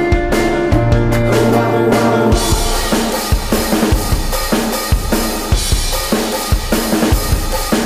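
Background music with a drum kit beat; about two seconds in, the full drums and cymbals come in under sustained pitched tones.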